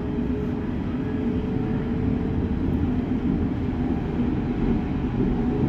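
Berlin S-Bahn class 482 electric train running at speed, heard from inside the carriage: a steady rumble of wheels on the track, with a faint steady tone that fades out about two seconds in.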